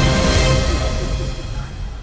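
Background music, growing quieter over the last second.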